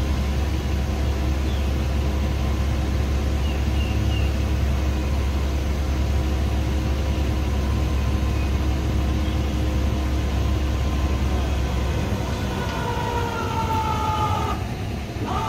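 A motor running steadily with a low hum and a higher whine, which fall away about twelve seconds in. A few faint bird chirps sound in the first few seconds.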